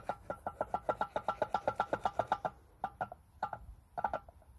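Removed Mercedes ML500 (W164) rear differential clicking as its pinion flange is turned by hand: a rapid, even run of clicks, about eight a second, breaking into short bursts after about two and a half seconds. The clicking is a sign that something is wrong inside the differential.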